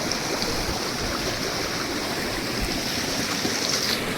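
Stream water rushing steadily, an even unbroken wash of noise.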